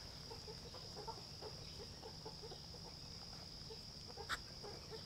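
Muscovy ducks pecking and nibbling feed off the grass: soft, quick, irregular clicks, with one sharper click near the end, over a steady high insect drone.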